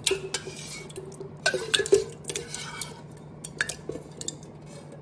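Steel spoon clinking and scraping against steel vessels while scooping thick curd into a pot: a string of irregular clinks, thickest about two seconds in.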